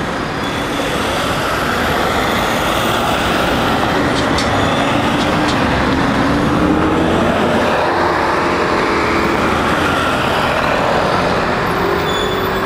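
Heavy city traffic at close range: a city bus drives past, its engine note rising and falling as it goes by, louder around the middle, over the steady noise of cars and tyres.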